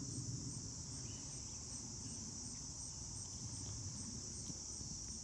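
Crickets chirring in a steady high-pitched chorus, with a faint low rumble underneath.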